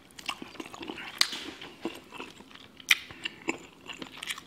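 Close-miked eating: biting into and chewing sauce-coated snow crab leg meat, with wet mouth smacks and several sharp clicks, the loudest about three seconds in.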